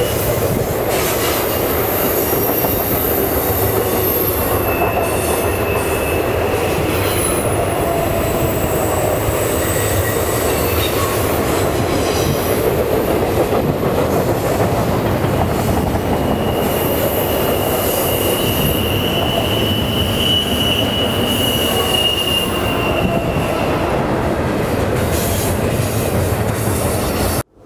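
Double-stack intermodal freight train rolling past through a curve: a steady loud rumble of steel wheels on rail, with wheel flange squeal rising in drawn-out high tones that come and go. It cuts off suddenly near the end.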